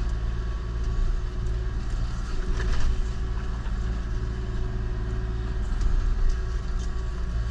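Kubota KX040-4 mini excavator's diesel engine running steadily under load, driving an Indeco forestry mulcher head. The steady drone gets louder and rougher about two and a half seconds in and again near six seconds.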